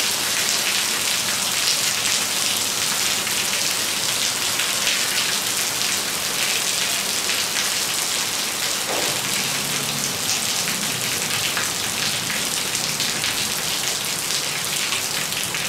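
Steady rain falling on a wet concrete rooftop, a dense, even hiss of drops splashing onto the concrete and into shallow puddles.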